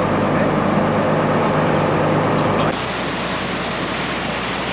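Engine running steadily. A little under three seconds in, the sound cuts to a lower engine drone with a rush of water and wind noise, as on a small ferry boat under way.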